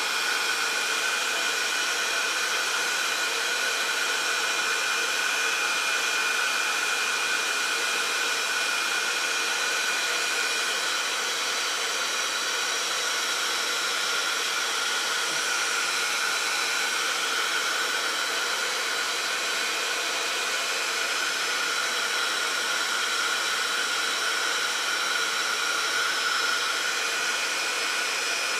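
Handheld craft heat gun blowing hot air steadily, a constant rushing whir with a few steady tones in it, as it melts embossing powder on a stamped paper image.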